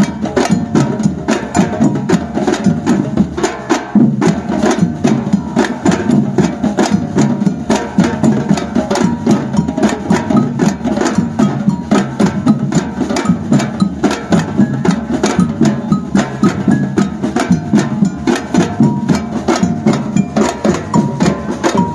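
Batucada percussion ensemble playing a steady, fast samba rhythm of drum and percussion strokes.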